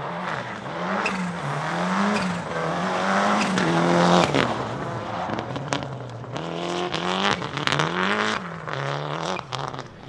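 Toyota Celica GT-Four ST185 Group A rally car's turbocharged 2.0-litre four-cylinder engine driven hard, its pitch climbing and dropping again and again through gear changes, with sharp cracks and pops in places.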